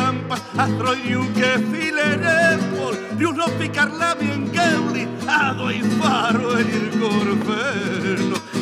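Acoustic guitar strummed and plucked in an Argentine chacarera, with a voice singing over it.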